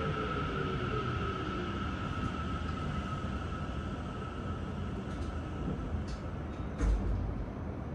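Tokyo Metro 9000 series train's Mitsubishi IGBT-VVVF inverter whining as the train brakes into a station, with falling tones that die away in the first couple of seconds and a steady high tone that fades out about five seconds in. Rail running noise goes on throughout, with a thump about seven seconds in and a few short hisses near the end.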